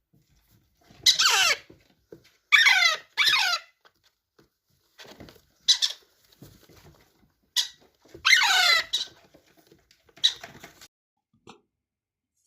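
Ring-necked parakeet giving a string of loud, shrill squawks that slide down in pitch, some in quick pairs, with short pauses between them.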